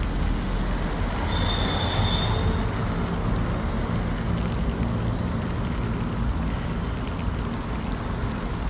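Steady road traffic noise, with a short high-pitched tone lasting about a second, starting around a second and a half in.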